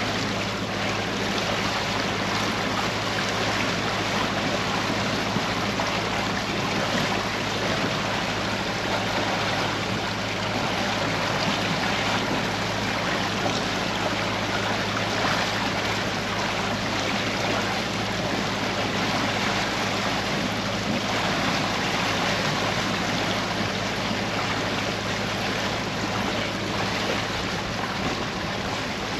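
Motor yacht under way at steady cruising speed: the engine's low, even hum under a steady rush of water along the hull.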